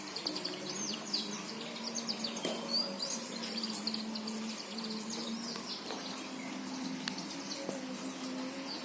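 Birds chirping: many short, high chirps in quick succession, thinning out after the first few seconds, over a steady low hum.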